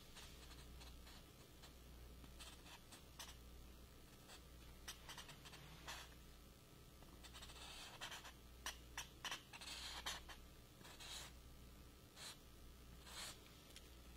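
Felt-tip marker drawing on poster board: faint, short scratching strokes that come in bunches, thickest about eight to ten seconds in.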